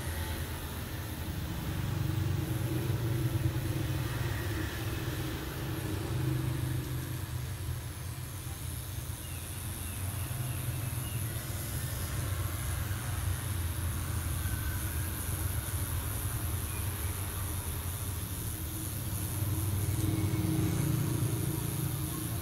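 Pen-style rotary tattoo machine running with a steady low hum as the needle works into the skin, growing louder a couple of seconds in and again near the end.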